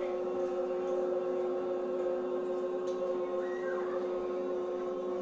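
A group of children holding one long, steady chanted note together, several pitches sounding at once.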